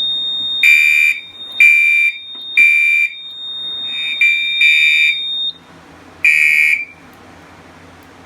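Fire alarm horns on a Silent Knight 5820XL system sounding in the temporal-3 evacuation pattern: three short blasts a second apart, a pause, then more blasts, set off by a magnet test of a smoke detector. A steady high-pitched beep runs under them and cuts off about five and a half seconds in. The horns give one last blast just after six seconds and stop.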